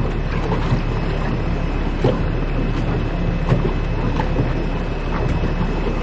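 Small boat moving along a rocky shoreline: a steady low rumble, with water slapping and splashing against the hull and wind on the microphone.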